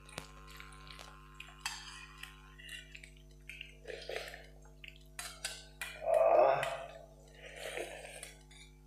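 Eating at the table: a spoon clinking on a steel bowl and plates, with small mouth noises. About six seconds in, a loud slurp as liquid is sipped from a spoon held over a steel bowl.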